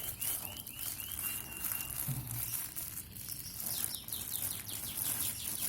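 Bird chirping: a quick string of about five short chirps, then a held thin whistle note, then a fast run of short falling chirps a few seconds in.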